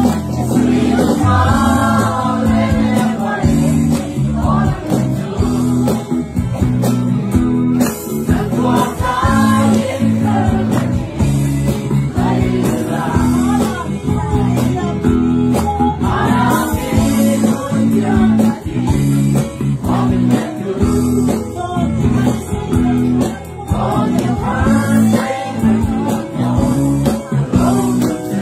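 A small group singing a Mizo song with guitar accompaniment.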